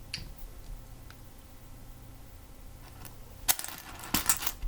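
Small plastic Lego pieces clicking as they are handled and pressed together: a few faint ticks, then a sharp click about three and a half seconds in and a quick cluster of clicks near the end.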